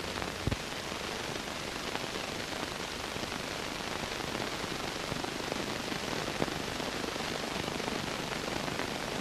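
Steady hiss with scattered faint crackles and pops: the surface noise of an old film soundtrack, with no voice or music. One slightly louder click comes about half a second in.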